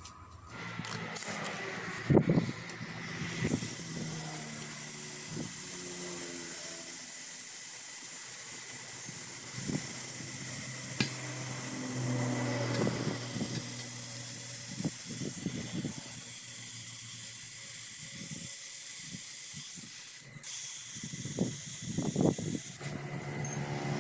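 A knock about two seconds in, then compressed air hissing steadily at the valve of a tube-type truck tyre, briefly interrupted near the end.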